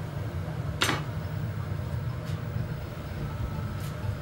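Steady low roar of a gas-fired glassblowing furnace or glory hole burner. A sharp metal clink comes about a second in, with fainter ticks later.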